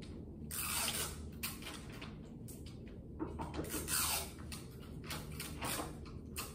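A string of short irregular scraping and creaking sounds, a few sliding down in pitch, over a steady low hum.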